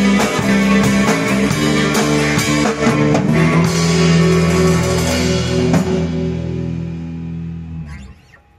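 Small rock band playing live on drum kit, acoustic guitar and electric guitars, with cymbal hits. About six seconds in the drumming stops and a final held chord rings on and dies away, ending the song.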